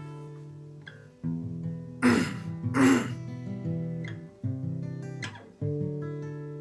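Acoustic guitar strummed, each chord left to ring and fade, with fresh chords struck about a second in, past four seconds and shortly before the end. Twice, around the second and third seconds, a person clears his throat, louder than the guitar.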